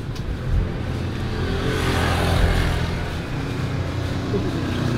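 A motor vehicle driving past on the road, swelling to its loudest about two seconds in and then easing off, over a steady low rumble.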